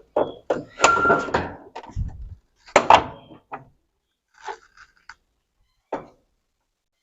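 Plastic panels of a top-loading washing machine being handled during disassembly: a series of knocks, clunks and scrapes, the loudest about one and three seconds in, tailing off into a few lighter taps.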